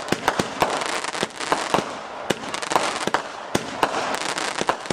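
Fireworks going off: a rapid, irregular string of sharp bangs and cracks, several a second, over continuous crackling.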